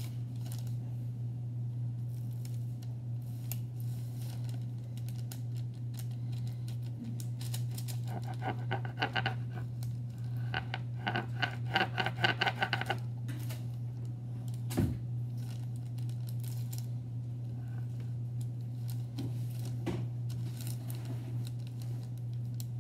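Table knife cutting and scraping through soft dough on parchment paper against a countertop: irregular scrapes and small clicks, with a run of louder, higher-pitched scraping strokes about halfway through. A steady low hum runs underneath.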